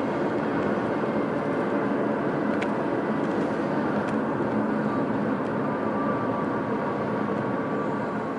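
Steady road and engine noise inside the cabin of a car driving along.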